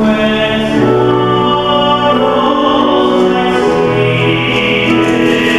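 Church music: singing voices on long held notes over sustained chords that change about once a second.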